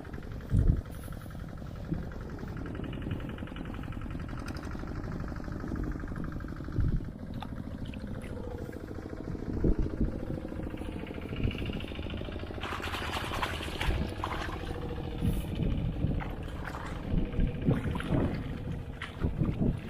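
Walk-behind tractor engine ploughing a flooded rice paddy, running steadily, with occasional knocks and a short rush of noise about two-thirds of the way through.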